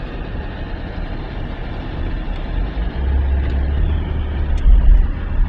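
City traffic heard from inside a car: a steady low rumble of vehicles that swells about three seconds in and is loudest near the end.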